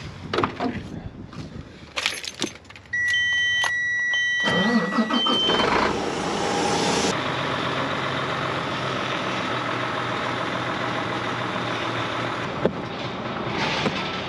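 A stock truck's engine starts: a few short electronic warning beeps, then the engine cranks and catches about four seconds in and settles into a steady idle.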